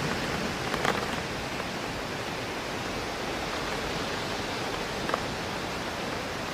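Rain hitting a window pane, a steady hiss with wind in trees blended in, and a few sharper drop taps on the glass, about a second in and again near the end.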